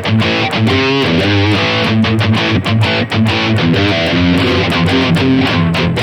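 High-gain distorted electric guitar playing a riff through a Bogner amp model on a digital guitar modeler. Chords are cut by many short stops.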